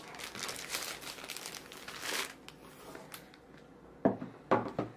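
Packaging crinkling and rustling as the contents are taken out of a box. It eases off about halfway through, and two sharper crackles come near the end.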